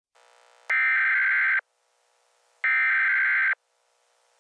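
Emergency Alert System SAME header tones: two harsh digital data bursts of about a second each, a second apart, after a faint hum.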